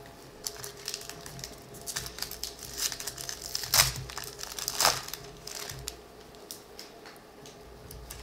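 Foil wrapper of a baseball card pack crinkling and tearing as it is pulled open by hand, with two sharper crackles near the middle.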